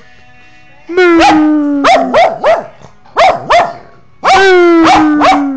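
Small dog howling and barking: a long howl slowly falling in pitch about a second in, a run of short barks, then a second long falling howl near the end.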